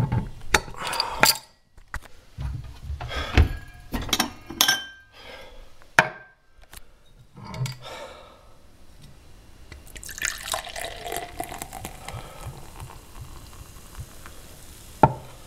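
Beer bottle and glass handled with a series of clinks and knocks, then beer poured into a glass for about four seconds, a steady splashing pour.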